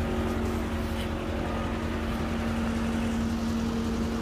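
1991 Chevrolet Corvette's V8 idling steadily with its climate-control system running, an even low hum with a constant tone.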